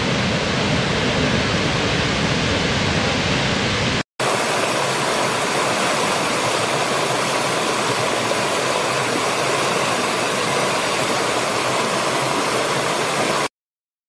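Steady roar of a large, powerful waterfall, cut off about four seconds in. It is followed by a lighter, higher rush of a small stream splashing over rocks, which stops abruptly shortly before the end.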